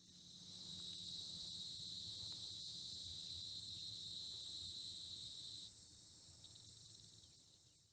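Faint, steady high-pitched insect chorus, like crickets, with no breaks. It drops noticeably in level about six seconds in and fades out near the end.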